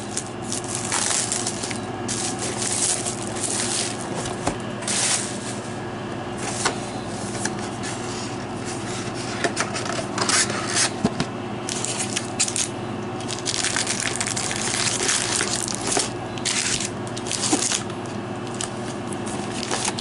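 Plastic shrink wrap crinkling and crackling in irregular bursts as it is peeled off a cardboard booster box, followed by the cardboard box being handled and foil booster packs rustling as they are lifted out.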